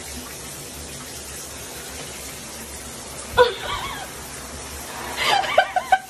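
Shower spray running steadily onto a bathtub floor, with a person laughing briefly about three and a half seconds in and again, in several quick laughs, near the end.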